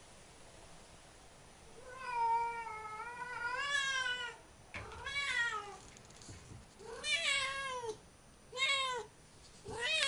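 Siamese cat meowing loudly: one long, wavering call, then four shorter meows that rise and fall in pitch.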